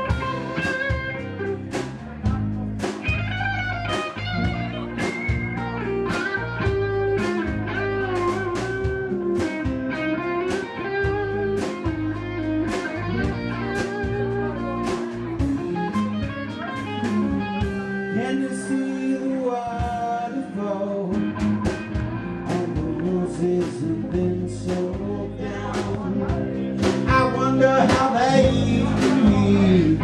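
Live blues-rock band playing: an electric guitar runs a lead line with bent notes over a steady drum beat and bass, growing louder near the end.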